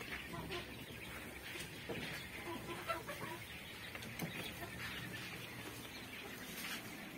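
A flock of 30-day-old quail in a brooder, with scattered short, faint calls from many birds at once.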